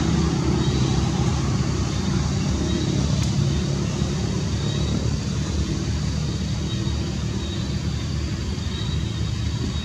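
Steady rumble of road traffic, with one brief click about three seconds in.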